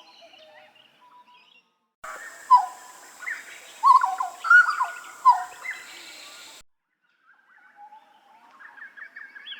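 Butcherbird song: a run of loud, clear whistled notes, several sliding downward in pitch, between spells of softer twittering calls. The recording cuts in and out abruptly, with a short silence after the loud passage.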